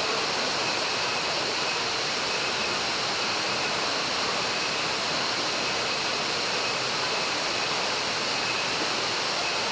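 Water of the Banyumala waterfall rushing in a steady, unbroken hiss.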